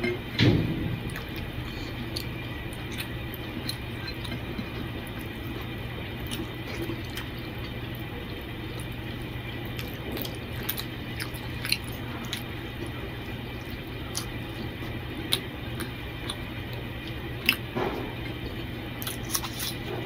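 Close chewing and soft wet squishing of fingers working rice and curry on a plate, with scattered small clicks over a steady low hum and one louder thump about half a second in.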